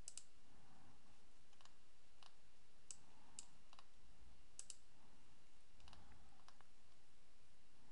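Computer mouse clicking, about ten faint, sharp clicks at irregular intervals, some in quick pairs.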